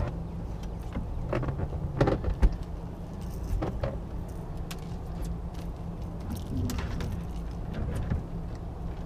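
Steady low hum of the fishing boat's motor, with scattered knocks and rattles of gear being handled in the boat, the loudest about two seconds in.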